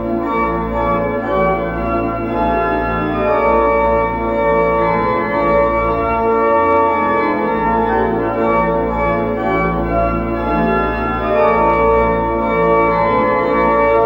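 Pipe organ playing slow, sustained chords over a continuous bass, with the chord changing every few seconds.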